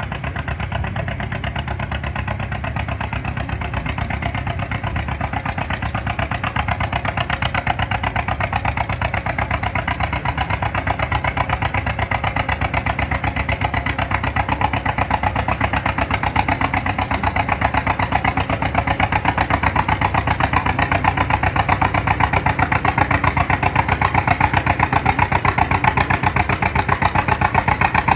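Antique John Deere two-cylinder tractor engine running with a steady, rapid popping exhaust beat. It grows gradually louder through the second half.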